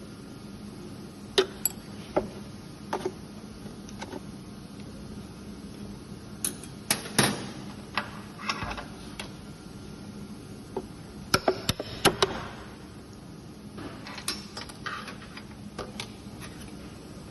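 Irregular clicks, taps and clinks of metal valve parts being handled and fitted back into a semi-automatic mascara filling machine, over a faint steady hum.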